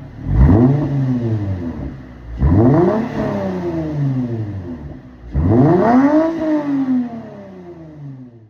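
Lexus IS350's 3.5-litre V6 free-revved three times through its exhaust, each rev climbing quickly and then falling slowly back toward idle.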